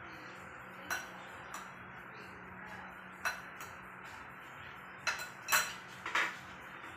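Metal spoon and fork clinking and scraping against ceramic dishes during a meal. A few scattered clinks, then a cluster of louder ones near the end.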